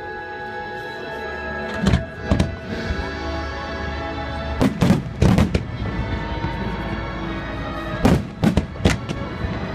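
Fireworks going off in sharp bangs, grouped in three clusters about two, five and eight seconds in, over steady music playing with the display.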